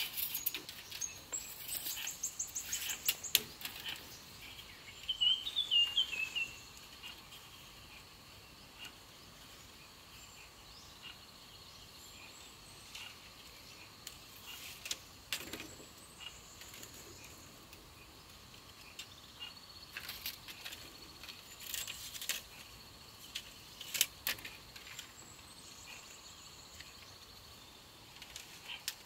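Forest and stream ambience with a steady high insect drone and a short run of bird chirps a few seconds in. Over it come scattered light clicks and rustles of thin bamboo strips being handled and woven into a fish trap.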